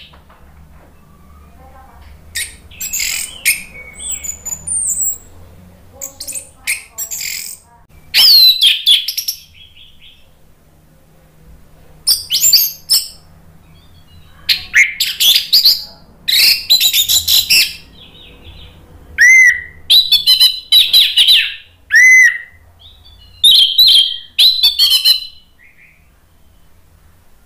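Orange-headed thrush (anis merah) singing loud, varied whistled song phrases of one to three seconds each, broken by short pauses.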